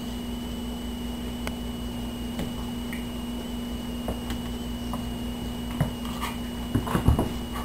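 Faint scattered taps and scuffs of a Siamese kitten and a Labrador retriever play-fighting on a hardwood floor, over a steady electrical hum, with a louder flurry of scuffling near the end.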